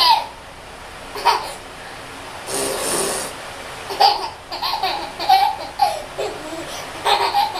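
A baby laughing hard in repeated bursts of belly laughs, with a wet, spluttering spit noise (a blown raspberry) lasting under a second about two and a half seconds in.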